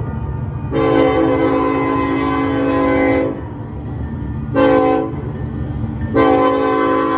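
Diesel freight locomotive's air horn sounding a chord of several steady notes: a long blast, a short one, then another long blast that starts about six seconds in. This is part of the long-long-short-long signal for a grade crossing. A continuous low rumble from the approaching locomotives runs beneath it.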